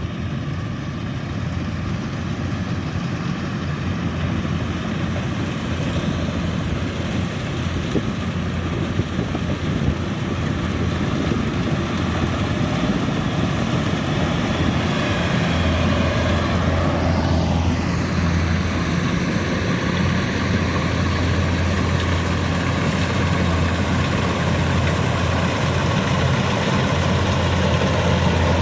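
Kubota DC-105X combine harvester's diesel engine running steadily while harvesting, growing gradually louder. A brief falling whine cuts across it about two-thirds of the way through.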